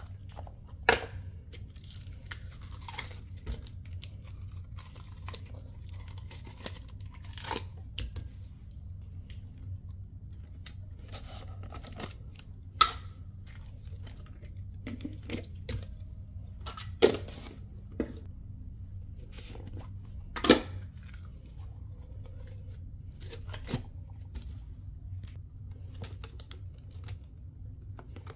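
Slime being squeezed and tipped out of plastic tubs into a stainless steel bowl: scattered sticky crackles and plastic rustling, with a few sharp clicks or knocks, the loudest about a second in and again near the middle. A steady low hum runs underneath.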